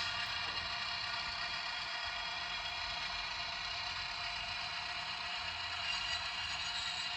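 HO-scale model Sperry rail inspection car running along the track, a steady engine-like hum with a layered whine.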